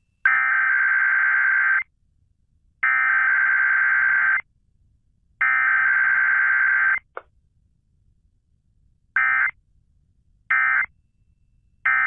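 Emergency Alert System SAME data bursts received over AM radio: three identical buzzy warbling bursts of about a second and a half each, about a second apart, which carry the alert header. After a short pause come three much shorter bursts, the end-of-message code.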